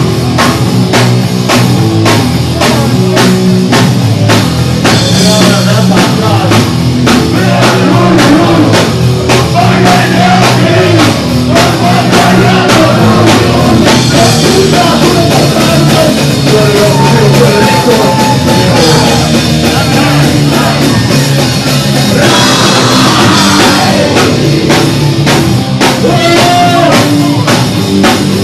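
Fast, loud punk rock with distorted guitars, bass and pounding drums, with a singer shouting over it.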